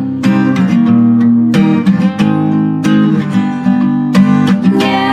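Instrumental pop music led by an acoustic guitar strumming chords, with no singing.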